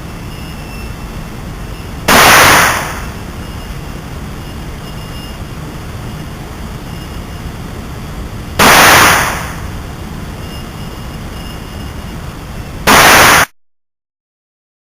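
Three gunshots several seconds apart, each loud enough to overload the recording and trailing off briefly, over a steady background noise. The sound cuts off abruptly right after the third shot.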